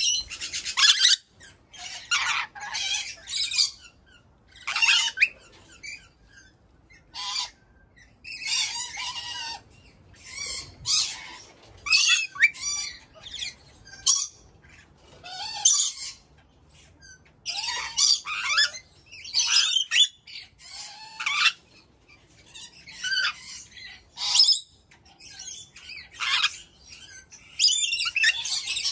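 Ornate lorikeets calling: short, shrill, harsh calls in bursts every second or two, some with a brief chattering run.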